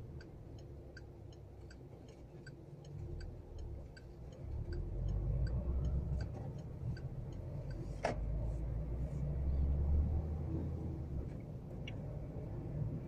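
Car's turn-signal indicator ticking steadily, about two and a half clicks a second, over the low rumble of the engine and road noise inside the cabin. The ticking stops about seven seconds in, once the turn is made, and a single sharp click comes about a second later.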